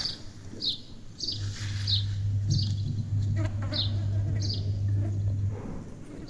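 A bird calling a short, high, falling chirp over and over, about every half second, over a steady low hum that starts about a second and a half in and stops near the end.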